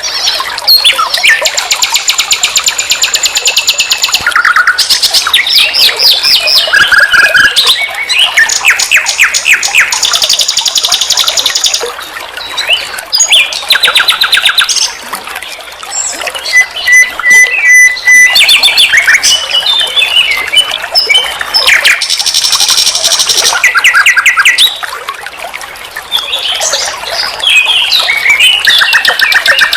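Nightingale singing a long varied song: phrases of rapidly repeated notes, trills and rattles, each a second or two long, with brief pauses between them.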